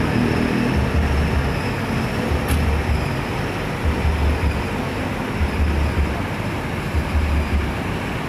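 Vehicle noise: an idling bus engine and passing road traffic, with a low rumble that swells and fades roughly every second and a half, and a brief click about two and a half seconds in.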